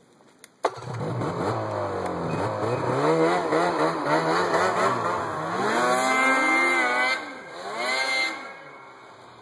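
A 2009 Ski-Doo 500SS snowmobile's two-stroke twin engine, breathing through a Dynoport big volume can exhaust, comes in suddenly just under a second in and revs up and down hard. It is loudest around six to seven seconds in, surges once more, then dies away near the end.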